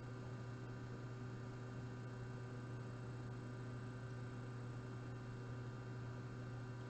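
A steady, low electrical hum with fainter higher tones above it and a faint hiss underneath, unchanging throughout.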